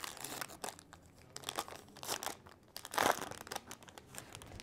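Wrapper of a Topps Heritage baseball card pack crinkling and tearing as it is pulled open by hand. The crackles come irregularly, with a louder one about three seconds in.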